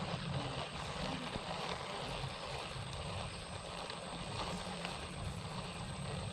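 Steady outdoor noise: wind buffeting the microphone over the hiss of a shallow creek's running water.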